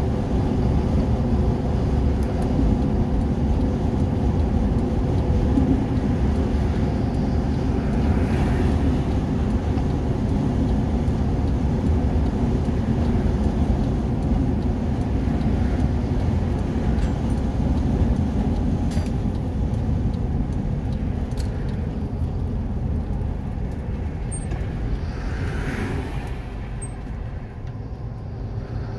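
Steady engine and road noise inside a moving vehicle's cabin, with a low drone and a faint steady hum. It grows quieter over the last several seconds.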